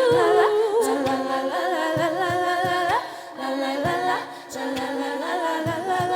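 An a cappella vocal group singing held, shifting chords without instruments, with low thumps from vocal percussion keeping the beat.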